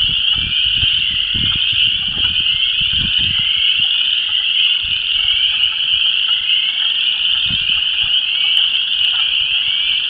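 A dense breeding chorus of spring peepers and chorus frogs calling without a break, a steady mass of high, overlapping peeps and trills. Wind gusts buffet the microphone underneath.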